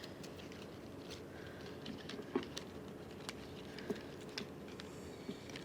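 Scattered light clicks and small handling noises as stem cuttings are snipped from a houseplant and handled, about eight sharp ticks spread irregularly over a few seconds.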